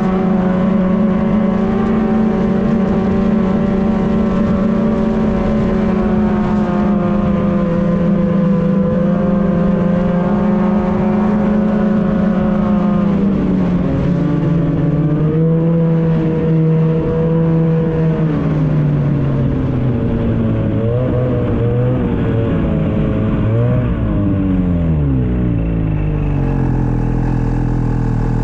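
Snowmobile engine running at a steady cruising speed, then easing off: from about halfway through its pitch drops in steps and wavers as the throttle is worked, settling at a lower, slower running pitch near the end as the sled slows down.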